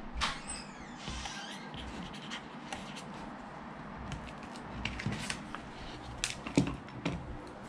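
Marker pen squeaking and scratching as it writes, with a short high squeak near the start. Then a few sharp clicks and knocks of handling during the second half.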